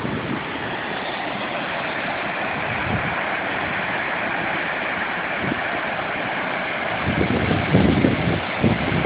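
Floodwater rushing down a reservoir spillway: a steady hiss of fast, shallow water. About seven seconds in, a louder, gusty low rumble joins it.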